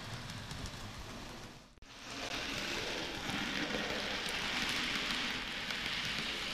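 Model train of Stephenson's Rocket with its open coaches running on the layout's track, an even rattling noise of wheels on rails. It drops out briefly about two seconds in, then grows louder as the train passes close.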